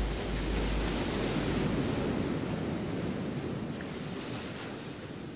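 A steady rush of surf-like ocean noise that slowly fades out, with a deep low hum dying away in the first couple of seconds.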